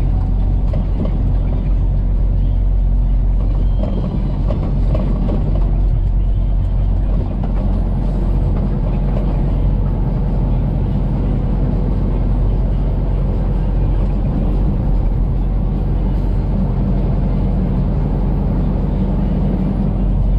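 Semi truck's engine and road noise heard from inside the cab while cruising on the highway: a steady, loud, low rumble.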